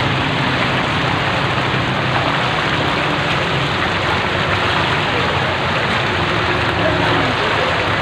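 Steady rush and splashing of floodwater churned up by wheels moving through it, with a truck's engine running low underneath that fades after the first couple of seconds.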